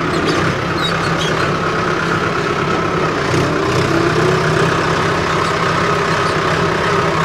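Mahindra Arjun 605 DI MS 4x4 tractor's diesel engine running under way, heard from the operator's seat. It holds a steady note, with a brief rise in pitch near the middle.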